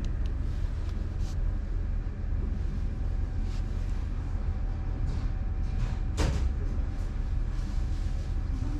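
Steady low rumble of background noise, with a faint steady hum and a sharp click about six seconds in.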